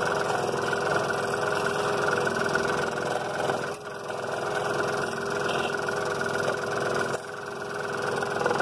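Scroll saw running steadily, its blade stroking up and down as it cuts wood while being backed out of a narrow cut along the pattern line. The sound dips briefly twice.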